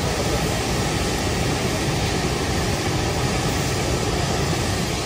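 Steady machinery noise in a workshop: an even, loud rushing hum with no beat or distinct tone.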